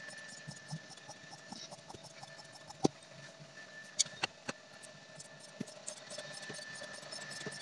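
Scissors cutting through cloth along a chalk line: a quiet run of small snipping clicks, with a few sharper clicks around three and four seconds in.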